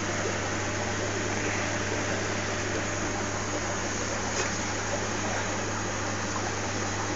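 Steady low hum with an even hiss over it, unchanging throughout: aquarium equipment such as an air pump and filter running.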